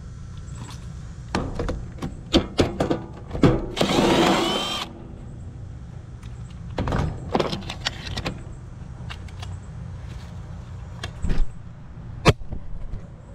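Clicks and knocks of tools and parts being worked loose in an HVAC unit's control panel, with a power driver whirring for about a second around four seconds in.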